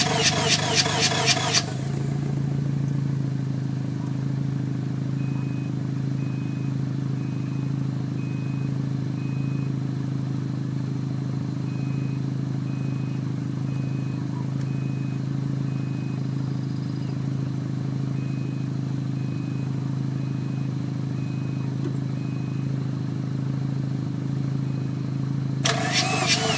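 Mazda RX-7 rotary engine being cranked by its starter in a fast, even rhythm for about a second and a half without catching, a no-start. Then a steady low hum carries on until the cranking starts again near the end.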